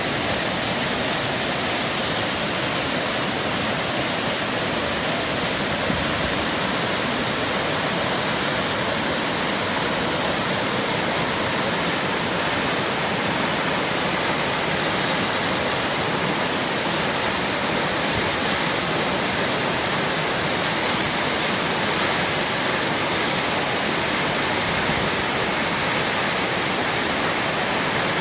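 Waterfall of about 20 metres with a large volume of water: steady, loud rushing of falling water.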